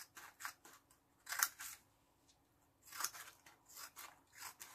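Small curved-bladed scissors snipping slits into a sheet of paper in short separate cuts. The loudest snips come about a second and a half in, and a run of quicker snips comes near the end.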